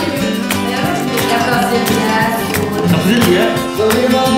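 Background music: a guitar-led, Latin-style piece with a steady beat.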